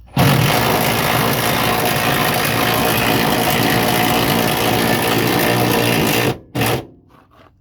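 Impact driver turning the spare-tyre winch to raise the spare wheel. It runs steadily for about six seconds, stops, then gives one short burst.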